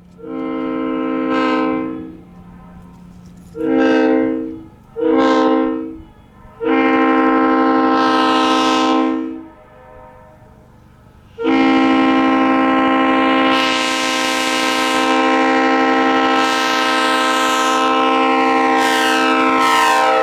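Multi-chime diesel locomotive air horn sounding a sequence of blasts: a long one, two short ones and another long one. Then comes a long held blast whose chord drops in pitch near the end as the locomotive passes.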